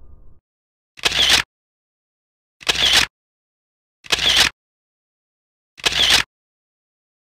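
Four short whoosh sound effects, each about half a second long, swelling and then stopping abruptly, with dead silence between them. The fading tail of a previous sound ends just before the first one.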